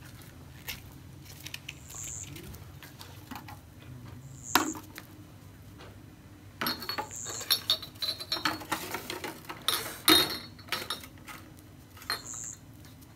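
China teacups rattling and clinking on a saucer as they are carried and set out: a single knock about four and a half seconds in, then several seconds of quick clinks and clatter.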